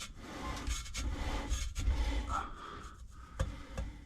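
Irregular scraping and rubbing with a few light clicks, the sound of tools and parts being handled during work under a car.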